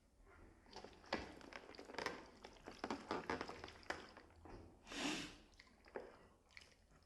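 Close-miked squishing and crackling as a jjajangmyeon meal is handled, dense crackles with one broader, longer swell about five seconds in.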